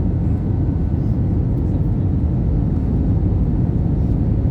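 Steady low rumble of an Airbus A320 on final approach, engine and airflow noise heard from inside the cabin, with a few faint steady tones above it.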